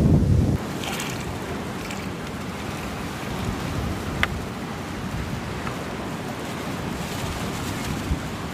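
Wind buffeting the microphone outdoors: a strong low gust at the very start, then a steady rushing noise, with one sharp click about four seconds in.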